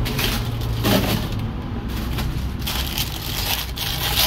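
Snack packaging, plastic wrap and cardboard, rustling and crackling as it is handled and torn open, over a steady low hum.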